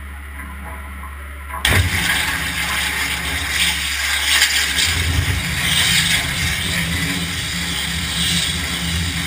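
Water-jet cutter switching on about two seconds in: a steady low hum from the machine gives way suddenly to a loud, continuous rushing hiss as the high-pressure jet pierces and cuts a 5 mm wood sheet, spraying into the catcher tank below.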